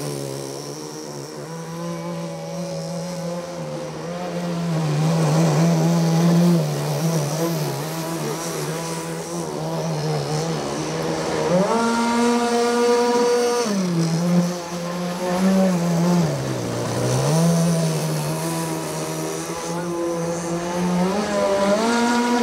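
A radio-controlled model watercraft's motor running. Its pitch climbs sharply about halfway through, holds, then falls, and it climbs again near the end as the throttle is opened and closed.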